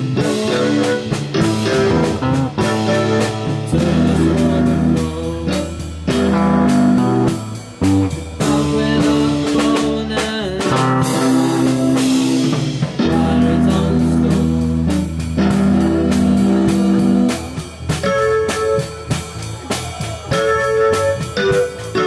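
Live band playing an instrumental blues-rock passage: amplified guitar over sustained bass notes and a steady beat.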